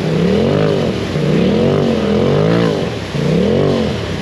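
Side-by-side UTV engine revved up and down about once a second, four times over, while the machine sits in place: the driver is working the throttle to spin the tyres and rock free of sticky mud.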